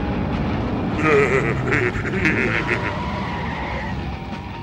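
Cartoon explosion sound effects over a continuous low rumble of fire. About a second in, a loud warbling, cry-like effect with a rapid flutter joins for a couple of seconds, then fades.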